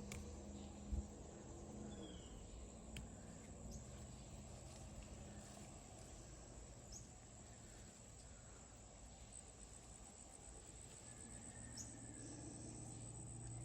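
Faint outdoor ambience with a steady high-pitched insect drone, and a single soft thump about a second in.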